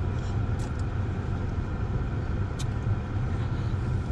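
Steady low rumble of passing road traffic and the car's own idling engine, heard from inside the car's cabin, with two brief clicks about two seconds apart.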